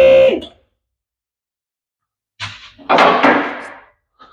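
Electric hydraulic pump motor of a car lift running, then cutting off with a falling whine in the first half second. About three seconds in, a short knock is followed by a loud metallic clunk that rings away, typical of the lift's locks or arms as the car is brought down.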